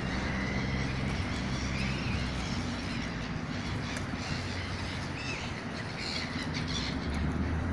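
Birds calling now and then over a steady low hum of street traffic.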